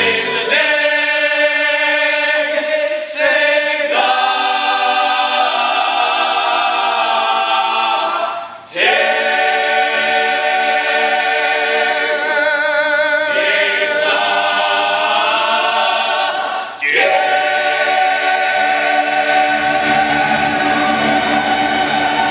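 Stage cast singing together in chorus, holding long sustained notes in three long phrases, with short breaks about a third and three quarters of the way through and some vibrato in the middle phrase.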